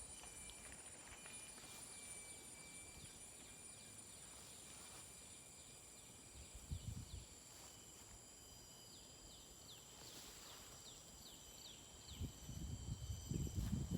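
Forest ambience: a steady high-pitched drone of insects with several held whining tones. A run of short, quickly repeated falling chirps comes through the middle. Low rumbling knocks come once briefly and again near the end.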